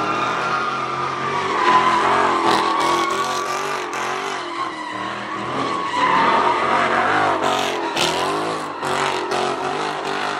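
A car doing donuts: the tyres squeal continuously while the engine revs up and down.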